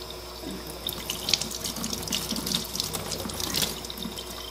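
Kitchen faucet running into a stainless steel sink, the stream splashing and spattering unevenly off hands and shaggy mane mushrooms being rinsed under it; the splashing picks up about a second in.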